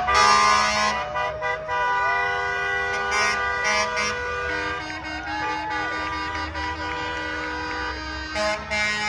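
Refuse trucks' air horns honking in separate blasts: a long one at the start, two short ones around three and four seconds in, and another near the end, over a bed of steady held tones.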